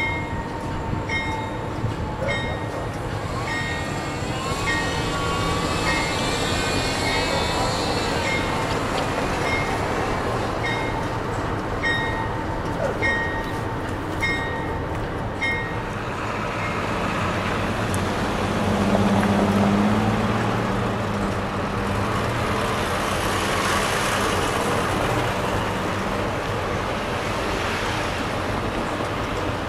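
Diesel locomotive (a GE C40-8W, V16 four-stroke) idling with a steady low hum, while a bell dings about once a second until about halfway through. Road traffic passes close by in the second half, loudest about two-thirds of the way through.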